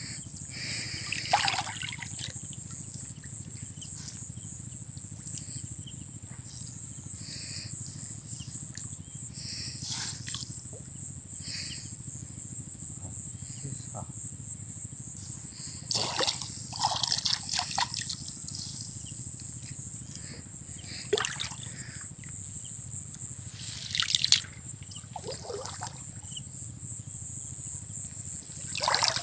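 Water dripping and trickling off a wet gill net as it is hauled in by hand from shallow water, with a few short splashes, a cluster of them about halfway through and a sharp one near the end, over a steady high-pitched hiss.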